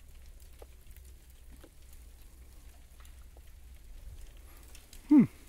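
Faint scattered patter and ticks, then near the end a short, loud, low grunt from a man close to the microphone, falling steeply in pitch.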